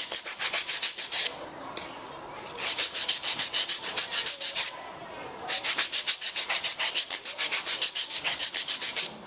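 Rough sandpaper rubbed by hand along the edges of wooden coasters, quick back-and-forth strokes at about six a second. The strokes come in three runs, with short pauses a little over a second in and near the middle.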